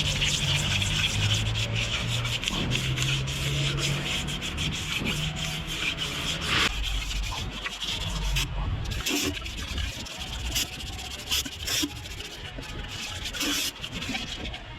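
Hand sanding with 400-grit abrasive paper on an engine's gasket face (block deck or cylinder head) to clean it before fitting the head gasket: steady scratchy back-and-forth rubbing strokes.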